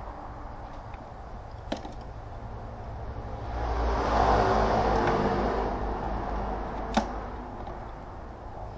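Two sharp metallic clicks of hand tools being handled in a car's engine bay, about two seconds in and again near the end, over a steady low hum. A louder low rumble swells up in the middle and fades away.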